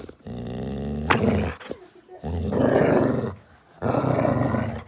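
A dog growling playfully in three long growls, about a second each, with short pauses between.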